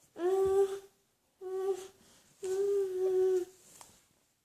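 A young child's voice making three drawn-out, steady-pitched whining sounds, the last one the longest. The child is upset: the whines are followed by comforting.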